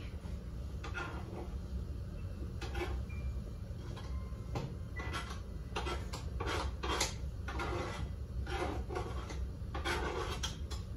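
Irregular light clicks and brief rustles of kitchen handling around a saucepan on the stove, coming more often in the second half, over a steady low hum.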